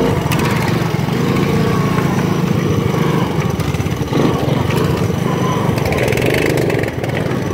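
Honda Big Red three-wheeler's single-cylinder four-stroke engine running steadily under way, close up, with a go-kart's small engine running just ahead.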